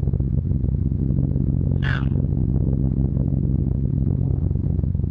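Steady drone of a Short Stirling heavy bomber's four Bristol Hercules radial engines heard inside the fuselage in flight, with one brief higher sound about two seconds in.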